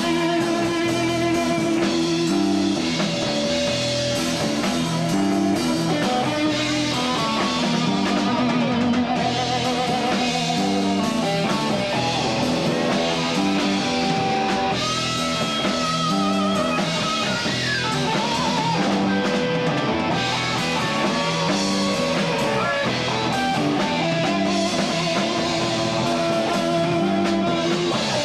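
Live rock trio playing an instrumental passage: electric guitar, bass guitar and drum kit with a steady beat. A lead guitar line holds a long note that bends upward about halfway through.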